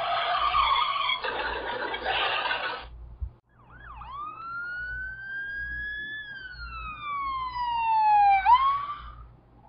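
Emergency vehicle siren wailing: one long slow rise in pitch, a fall, and a quick upward sweep near the end. Before it, about three seconds of loud rough noise.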